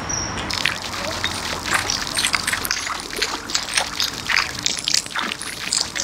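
A small fountain jet splashing into its shallow stone basin, with irregular splashes starting about half a second in.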